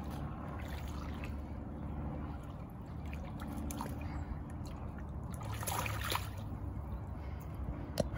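Lake water splashing and trickling as a Wels catfish is released from a landing net in the shallow margin, with a stronger burst of splashing about six seconds in and a sharp click near the end.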